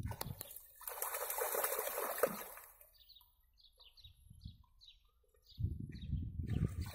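Shallow stream water splashing for about two seconds as a French bulldog wades through it, then a small bird singing a quick run of short, high chirps. A low rumble comes in near the end.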